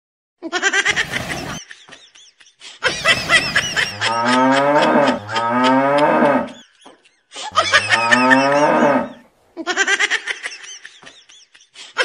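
Cattle mooing: three long moos that rise and fall in pitch, with a higher warbling sound laid over them.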